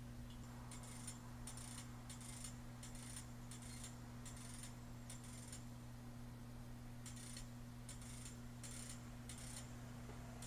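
Faint, rhythmic rasping strokes from a track crew's hand tool worked at the rail, about one and a half a second: a run of about eight, a short pause, then about five more, over a steady low hum.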